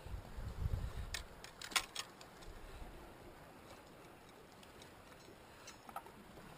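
Quiet handling of a freshly caught mackerel and its hook and line: a low rustle at first, then a quick run of light clicks and taps about one to two seconds in and a couple more near the end.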